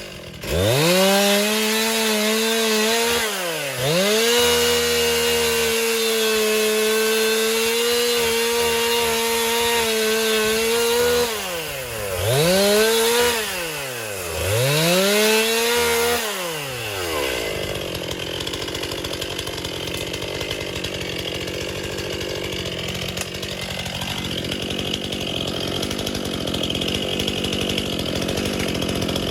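Gas chainsaw at high revs, the throttle let off and opened again several times in the first half, then held lower and steadier with a rougher sound from about two-thirds of the way through as it cuts into storm-downed wood under load.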